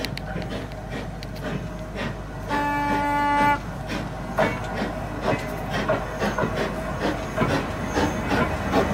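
Replica of Stephenson's Rocket steam locomotive running slowly past, with a repeated clatter of knocks and clicks from the engine and its wheels on the track. A whistle sounds for about a second, about two and a half seconds in.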